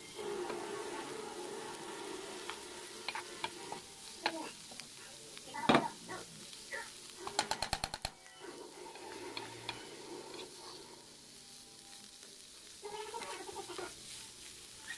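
Sliced bitter melon and string beans sizzling in a frying pan as they are stir-fried, with scrapes and knocks of the spatula against the pan. One loud knock a little before the middle, then a quick run of sharp taps.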